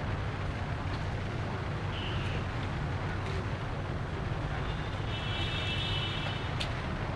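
Steady low rumble of city traffic, with a brief high-pitched tone about two seconds in and a longer one about five seconds in.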